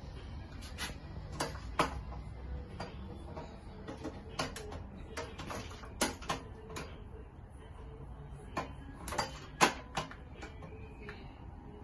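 Pliers clicking and snapping as electrical wires are worked at a wiring panel: irregular sharp clicks, the loudest about two seconds in and again near the end, over a low steady hum.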